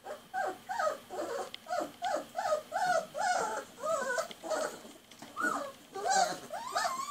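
Three-week-old Great Dane puppies whimpering in a string of short, high cries that rise and fall, about two a second, with a brief pause near the middle.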